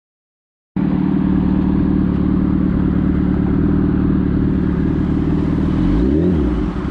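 Sport motorcycle engine running steadily at low road speed after a moment of silence, with a brief rise and fall in revs near the end.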